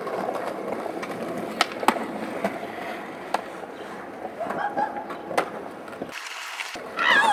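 Skateboard wheels rolling on concrete, with several sharp clacks of the board popping and landing. Right at the end a loud sound slides down in pitch.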